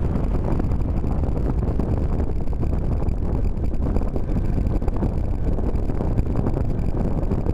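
Steady wind buffeting on the microphone of a bicycle-mounted Cycliq Fly12 camera, riding at about 24 km/h, mixed with rumbling road noise.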